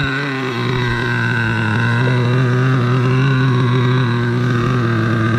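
Nitro RC car's small glow-fuel two-stroke engine idling at a steady pitch.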